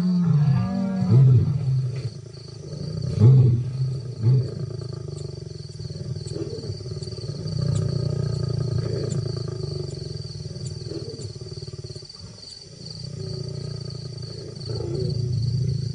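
Lions snarling and growling in a fight: several loud snarls in the first few seconds, then a long, low rumbling growl that briefly drops away about twelve seconds in and swells again near the end.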